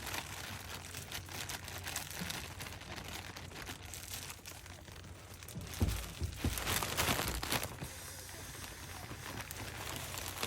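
A bag crinkling and rustling as it is stuffed and pulled during packing, with a few louder thumps and scrunches a little past the middle.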